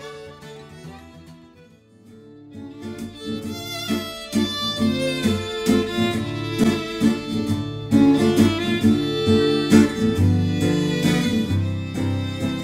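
Instrumental background music led by fiddle with guitar. The music dips nearly away about two seconds in, then a new passage starts and grows louder.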